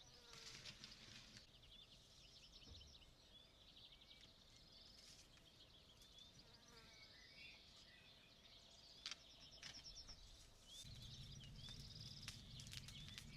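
Near silence with faint birds chirping in quick repeated notes. A low rumble comes in about three-quarters of the way through.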